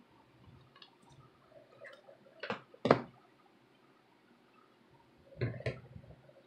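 A clothes iron being set down and handled on paper over a cutting mat: two sharp knocks about two and a half seconds in, a quiet stretch while it presses, then a short clatter near the end as it is lifted away.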